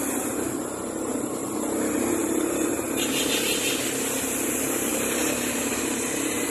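A small motorcycle engine running steadily, heard from the tricycle's sidecar, with the hum of other traffic engines around it.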